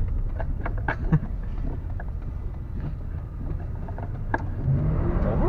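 Vehicle engine and road rumble heard from inside the cab, with a few light clicks and rattles. Near the end the engine note starts to climb as the vehicle begins a hard launch that spins one drive wheel.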